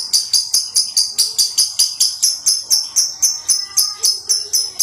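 Lovebird's 'ngekek' chatter: a fast, even string of high, shrill chirps, about five a second, running on without a break.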